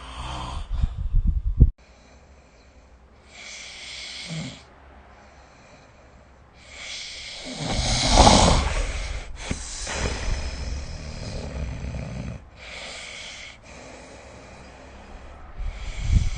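A sleeping person snoring: loud, low rattling snores, one long one in the middle and others at the start and near the end, separated by shorter hissing breaths. The first snore cuts off abruptly.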